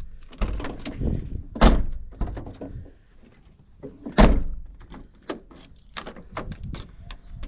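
Volkswagen T4 van door being shut with two heavy thuds about two and a half seconds apart, the second the louder, then a run of quick clicks from the newly fitted door handle and latch being worked.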